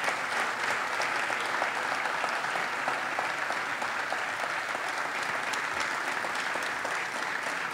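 Audience applause in a theatre: steady clapping from many hands, greeting an award recipient.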